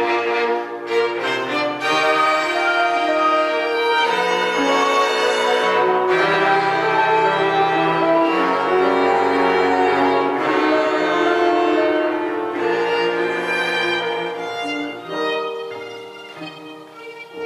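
Classical chamber music from a small bowed string ensemble: violin and cello playing held, overlapping notes, growing softer near the end.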